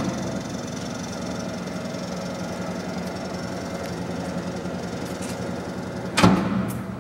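Clausing Colchester 13x40 geared-head lathe running steadily at 800 rpm, its headstock gears and 3 hp spindle motor giving an even hum. About six seconds in a lever on the carriage apron is thrown with a sharp clunk, and the running sound falls away.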